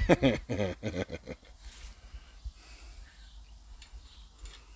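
Brief wordless vocal sounds from a person in the first second or so, then low room noise with a few faint clicks.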